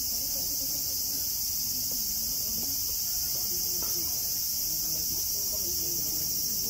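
Steady, high-pitched chorus of night-singing insects, unbroken throughout, with faint distant voices of people underneath.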